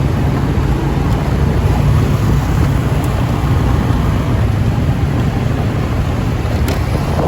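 Wind rushing over the microphone of a passenger riding on a moving motorcycle taxi, with the motorbike's engine and surrounding street traffic underneath: a steady, loud rumble.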